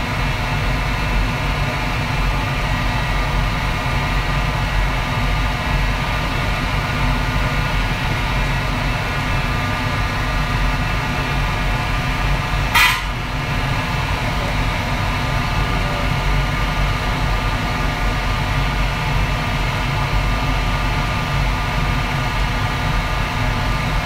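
Steady loud running of a restaurant kitchen's wok burner and extraction fans, with a constant hum. A single sharp metallic clink rings out about halfway through.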